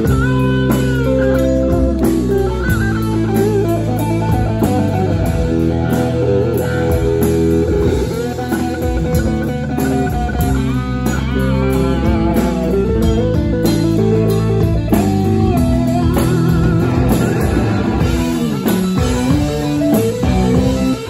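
Live rock band playing an instrumental stretch: electric guitar lines over bass guitar and a drum kit.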